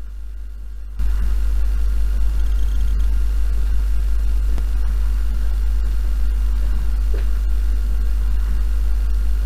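Playback of an audio-recorder session boosted several times over: a loud, steady low hum with hiss and faint room noise, the amplified noise floor of the recording. It jumps much louder about a second in.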